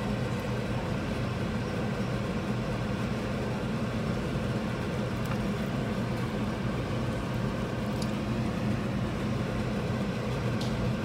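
Steady low running hum of a vehicle, engine and road noise heard from inside, with a few faint ticks.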